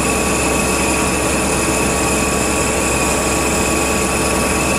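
CNC machine spindle running steadily with an inertia-style Autofacer back spotfacing tool cutting a metal casting: a constant hiss of cutting and machine noise with a steady whine at several pitches over it.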